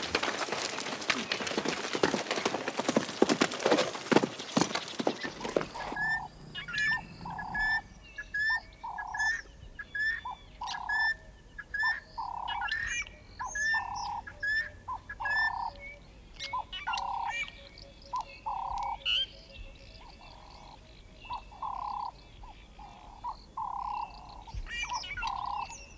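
Dense drumming and rustling from zebras' hooves as they gallop through dry grass, cutting off about five seconds in. It gives way to a chorus of wild animal calls: short repeated notes about once a second, with higher chirps over them.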